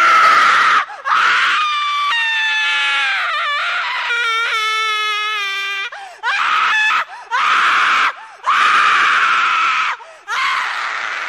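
A person screaming: a long high scream that slides down in pitch, then four shorter screams one after another.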